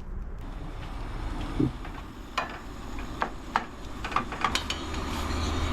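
A utensil clinking and tapping against a cooking pot, a few separate light clinks in the second half, over a steady low rumble.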